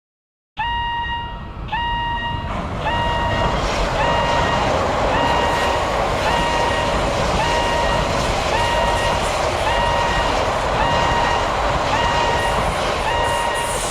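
Japanese railway level-crossing bell starting its "kan-kan" ringing about half a second in, just under two strikes a second. About two and a half seconds in, a steady rushing noise of a passing train joins it.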